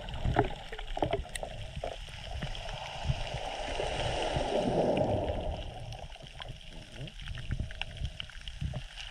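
Sea water heard through an underwater camera just above a sandy bottom: a muffled wash and low rumble of water movement with scattered small clicks, swelling for a couple of seconds about halfway through.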